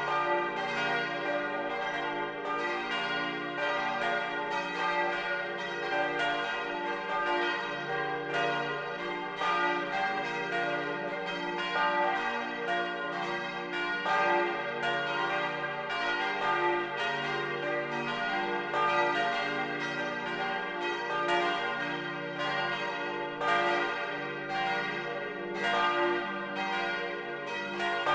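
Full peal of four 1950 Junker bronze church bells tuned d'–f'–g'–b', swinging and ringing together, heard close up from inside the bell tower. It is a dense, irregular stream of strikes whose tones overlap and keep ringing.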